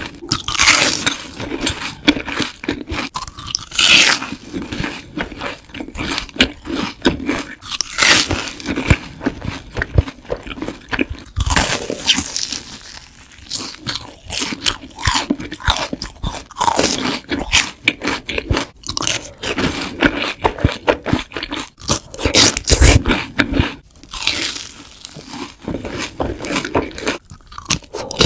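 Close-miked crunching and chewing of crisp, seasoned fried balls: repeated bursts of crackly bites with quieter chewing in between.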